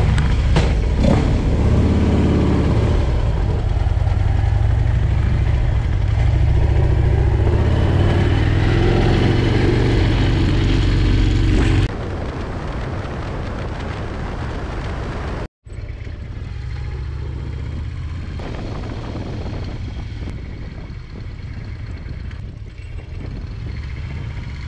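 Harley-Davidson Low Rider S V-twin engine running loud close to the microphone, its pitch rising and falling a few times. About twelve seconds in it switches abruptly to a quieter, steadier engine sound with wind on the microphone as the bike is ridden, broken once by a split-second dropout.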